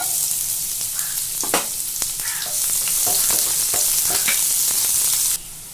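Chopped onion hitting hot oil in a kadai and sizzling loudly, with short knocks of a spatula against the pan as it is stirred. The sizzle cuts off suddenly near the end.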